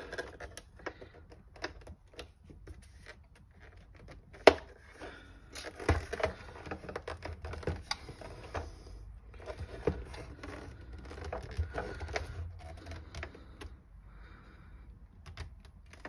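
Plastic clicking and rattling as retaining clips are pressed onto a digital instrument cluster's plastic housing and the housing is handled, with one sharp click about four and a half seconds in.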